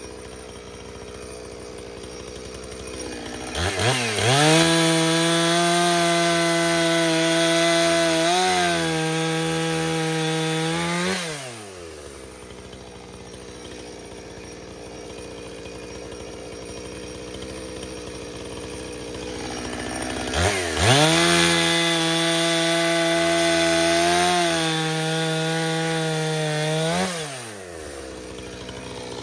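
Two-stroke chainsaw idling, then opened to full throttle twice for about seven seconds each while cutting wood. Each time the pitch shoots up, holds high with a brief dip, and drops back to idle.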